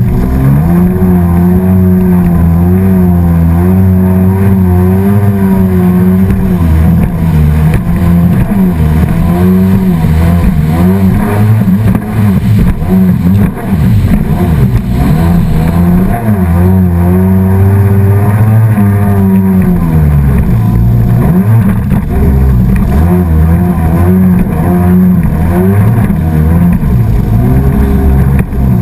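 Engine of a small motor craft running at speed across the water, its pitch wavering up and down with a couple of brief dips, over the steady rush of water and spray.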